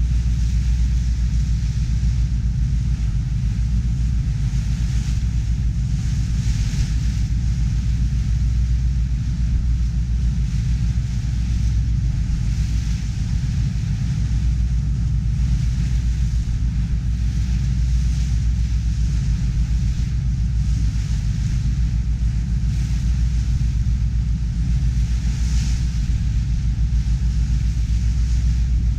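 Ferry boat under way: its engine drones steadily and low, with a hiss of water and wind over it that swells briefly a few times.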